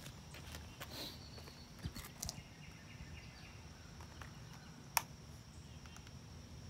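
A few short plastic clicks and taps from handling a DJI Mavic Pro folding drone on concrete, with its motors off. The sharpest and loudest click comes about five seconds in, over a faint outdoor background with a thin steady high tone.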